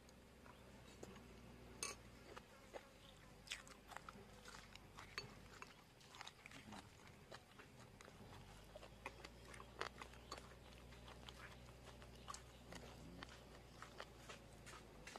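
Faint sounds of people eating: chewing and small crunches, with irregular light clicks scattered throughout.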